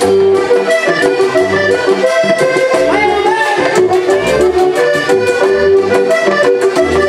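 Live vallenato played on a button accordion carrying the melody in held and running notes, over a regular low beat.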